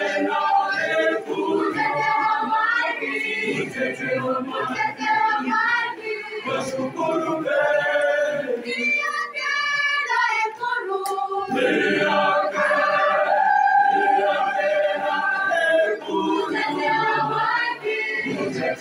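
A mixed youth choir of women and men singing together.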